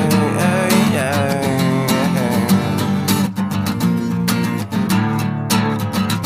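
Music: a song's instrumental passage with strummed guitar over a steady drum beat.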